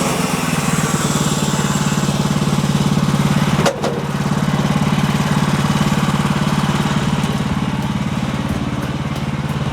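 Small gasoline engine of a manual band sawmill running steadily, with a brief sharp break in the sound about four seconds in.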